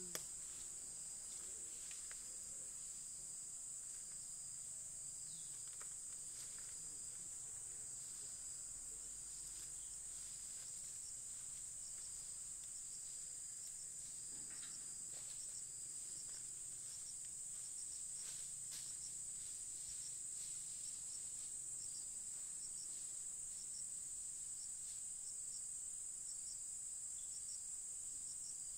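Insects in forest making a steady high-pitched drone, with short chirps repeating over it, more often in the second half.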